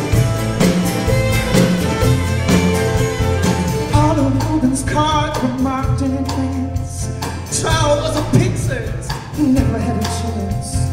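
Instrumental break in a folk-rock song: an acoustic guitar strums a steady rhythm while a violin plays a sliding melody line over it.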